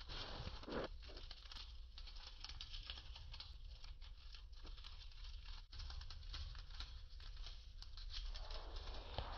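Large winged cockroach on its back beating its wings against a tile floor: a faint, dry, rapid rattle of tiny clicks.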